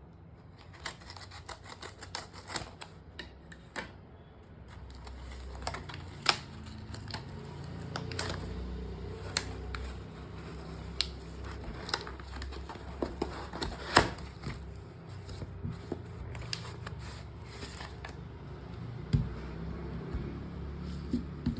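Packaging of a new Kindle being handled and opened: scattered clicks, taps and scrapes of cardboard and plastic over a low rumble.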